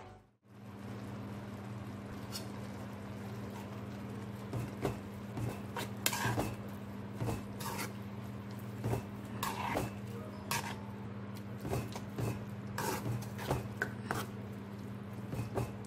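A spoon clinking and scraping against a metal pan as a simmering spinach and mushroom curry is stirred, in irregular short knocks over a steady low hum.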